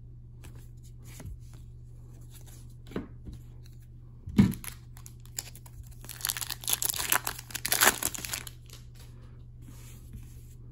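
A single thump about four seconds in, then the foil wrapper of an Upper Deck hockey card pack crinkling and tearing for a couple of seconds as it is ripped open.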